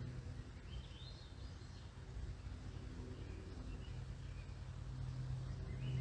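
Birds calling in backyard ambience: a short run of rising, stepped notes about a second in, fainter calls in the middle, and another call near the end, over a steady low hum that grows louder in the second half.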